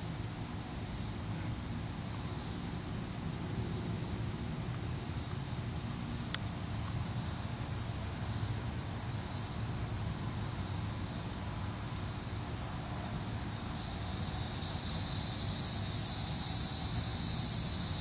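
Chorus of cicadas calling in the background: a steady, high-pitched buzzing that pulses in waves and swells louder near the end.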